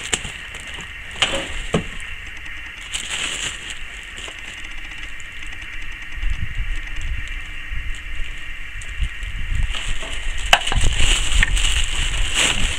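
Clicks, knocks and rustling from handling a new belt sander and its packaging during unboxing. A low rumble joins in about halfway through, with a few sharper knocks near the end.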